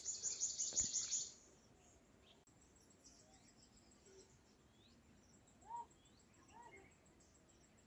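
Birds calling faintly: a rapid high trill in the first second, then scattered short chirps, some falling in pitch.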